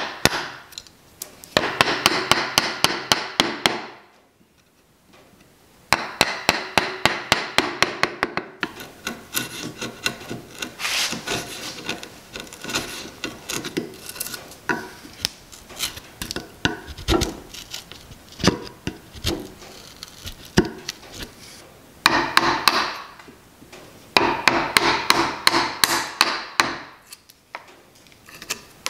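Rapid back-and-forth rasping strokes of a hand tool on a small wooden workpiece, about six strokes a second, in several bursts. There is a short quiet gap about four seconds in, and a less regular stretch of scraping through the middle.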